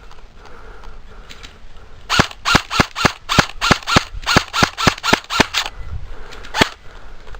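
Airsoft gun firing a rapid string of about a dozen single shots, roughly four a second, then one more shot about a second later.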